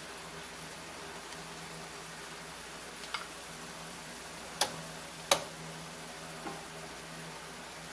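Garlic and onion sautéing in a pan with a steady low sizzle, and a cooking utensil knocking sharply against the pan four times, loudest twice in the middle.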